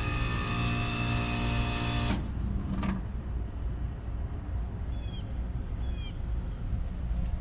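Trane Odyssey heat pump outdoor unit running through a defrost cycle: a loud hum with a steady whine and hiss cuts off abruptly about two seconds in. A brief hum and a short falling tone follow, then a lower steady rumble with a few faint chirps.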